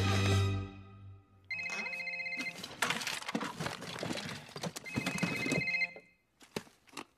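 Mobile phone ringing: an electronic ringtone about a second and a half in and again at about five seconds, with rustling and knocking in between. Music fades out during the first second.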